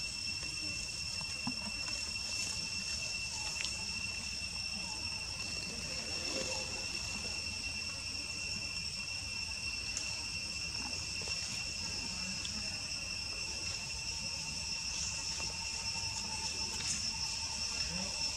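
Insects droning: a steady, high-pitched, unbroken buzz holding the same pitch, with faint scattered small rustles beneath.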